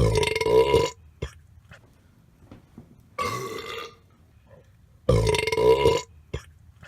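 Three loud belches, each under a second long: one at the start, a shorter one about three seconds in, and a third about five seconds in.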